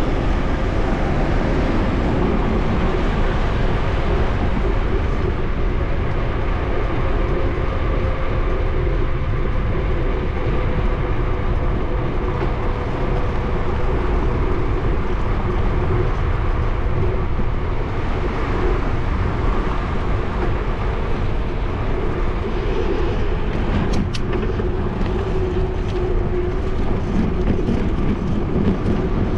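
Wind rushing over the microphone of a bicycle-mounted action camera while riding, with tyre noise on asphalt and a faint steady hum. A few sharp ticks sound near the end.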